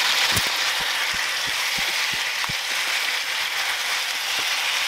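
Chicken pieces sizzling in a frying pan with a steady hiss while a wooden spatula stirs them, making a run of soft knocks against the pan about two or three times a second.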